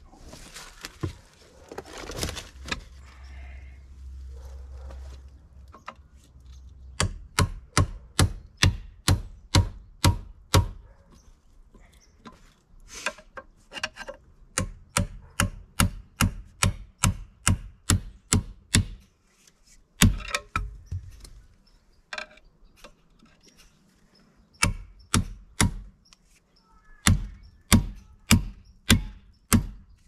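Hammer blows on screwdrivers wedged behind the outer plate of a Cat 247's ASV track undercarriage, driving them in to pry the stuck plate off. The blows come in runs of sharp strikes, about two a second, with short pauses between runs.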